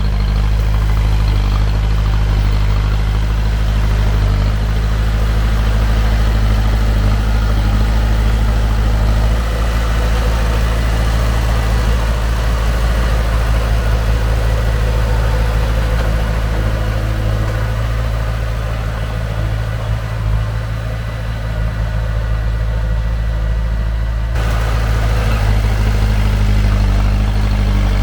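Heavy construction-machine diesel engine running steadily with a deep, even note. It eases off briefly about two-thirds of the way through, and the sound changes abruptly a few seconds before the end.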